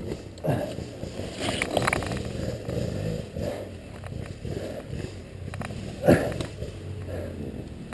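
Scuffing and scraping with a few sharp knocks, the loudest about six seconds in, over a motorcycle engine running in the background.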